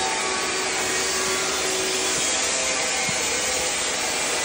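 Gas burner firing under a drum blender-mixer machine, giving a steady, even hiss with a faint hum underneath.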